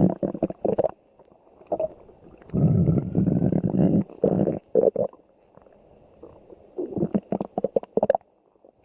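Stomach growling and gurgling: short gurgles, then a longer low rumble a few seconds in, and a quick run of short pops and gurgles near the end.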